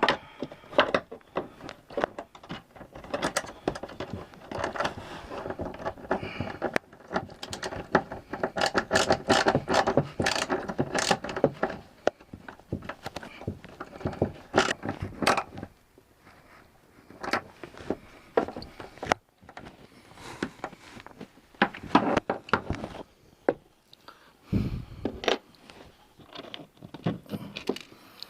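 Clicks, scrapes and rattles of a nut and bolt being worked and tightened to fasten a gear track to a plastic kayak hull. The handling is busiest in the first half and thins out later, with a single dull thump near the end.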